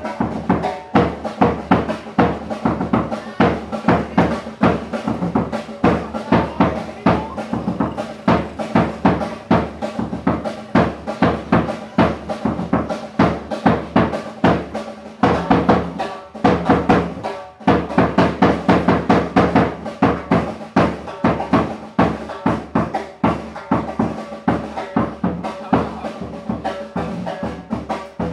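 Live funeral band playing: a drum kit keeps a busy, steady beat on bass and snare drum under a saxophone melody.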